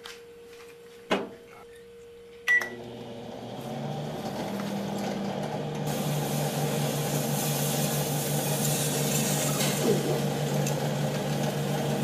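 Old microwave oven: a click about a second in, another click with a short beep as it is started, then a steady running hum. The apple inside makes no popping.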